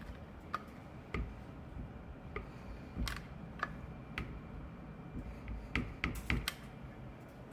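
Silicone caulking gun clicking as its trigger is squeezed to push out silicone: about ten sharp clicks at irregular intervals, several in quick succession around two-thirds of the way in.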